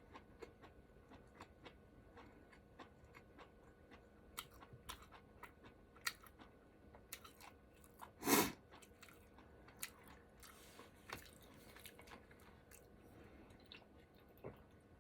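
A person chewing ramen noodles, with many small, faint wet mouth clicks throughout. One louder sound lasting about half a second comes around the middle.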